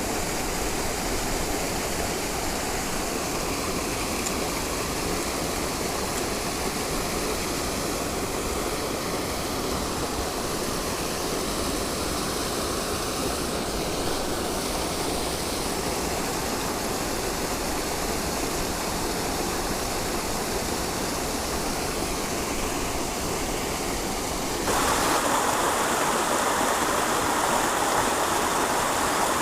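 Stream water flowing steadily. Near the end it abruptly becomes louder and brighter.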